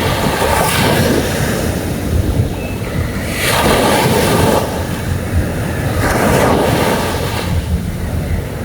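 Sea waves breaking and washing up the beach, swelling three times, with wind buffeting the microphone.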